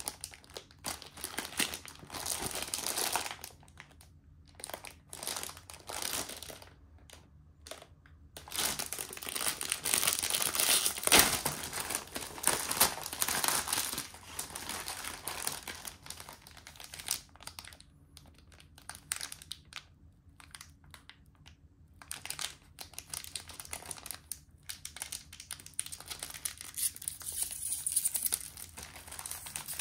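Plastic wrapping of a bag of Oreo sandwich cookies crinkling as it is handled and opened, in irregular bursts with short pauses, loudest for several seconds about a third of the way in.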